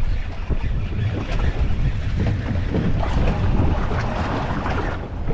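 Strong gusting wind buffeting the microphone aboard a boat in choppy seas, with the wash of waves underneath.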